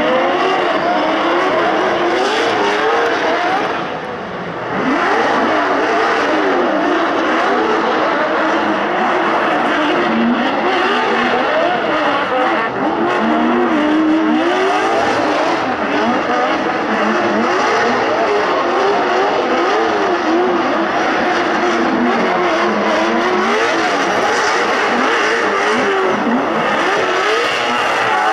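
Two drift cars, a Nissan Silvia and a BMW 3 Series coupe, sliding in tandem, their engines revving hard up and down with the throttle over a constant tyre screech. The sound dips briefly about four seconds in.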